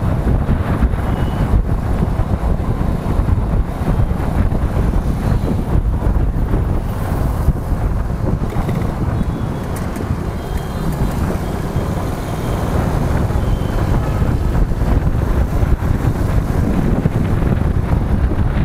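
Wind buffeting the microphone of a moving motorcycle, a dense low rumble with the bike's engine and road noise mixed in.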